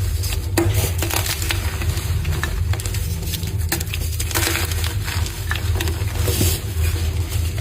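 Blocks of gym chalk crunching and crumbling as they are crushed, a dense run of irregular crisp cracks and crackles over a steady low hum.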